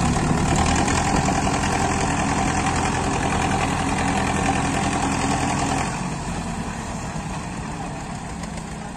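Diesel tractor engine running hard while hauling a trolley loaded with soil through loose sand. The engine eases off and quietens about six seconds in.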